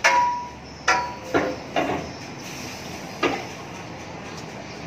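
Sharp metal clanks, five in about three seconds, some with a brief ring, as a heavy bus wheel's alloy rim is slid onto a wheel balancer's steel shaft and centring cone.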